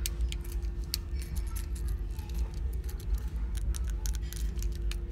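Fidget cube being worked by hand: an irregular run of small sharp plastic clicks, over a steady low hum.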